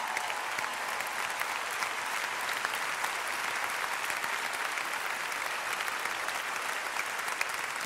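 A large audience applauding, a steady wash of clapping that holds at an even level throughout.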